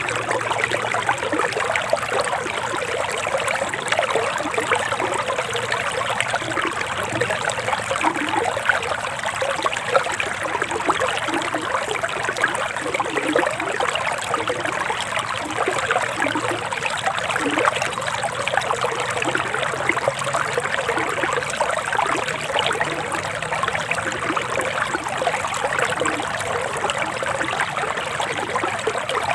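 Forest stream flowing steadily, a constant trickling of water with small bubbling sounds.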